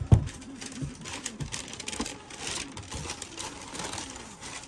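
Handling of a sneaker and its packaging: a thump right at the start, then a steady run of light clicks, taps and rustles.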